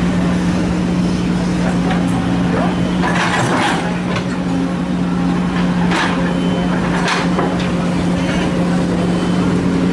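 Heavy diesel engine running steadily under load, with a few short rushing, scraping bursts: a longer one about three seconds in and briefer ones near six and seven seconds.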